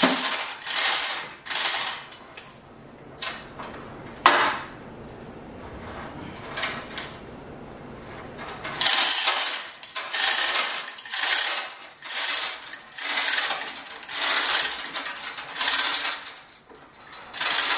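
Manual chain hoist being worked hand over hand, its steel hand chain rattling and clinking through the hoist with each pull. A short run of pulls comes first, then a few quieter seconds with a couple of single metal clicks, then steady pulls about every 0.7 s through the second half.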